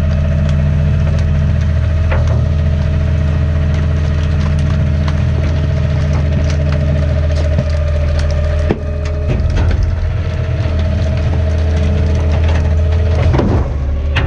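Garbage truck engine running with a steady whine over it, while trash crunches and cracks in the hopper as it is compacted. A sharp knock comes about nine seconds in.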